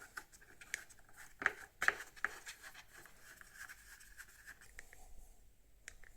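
A few faint, scattered clicks and taps, the sharpest a cluster about one and a half to two seconds in, typical of small parts and tools being handled.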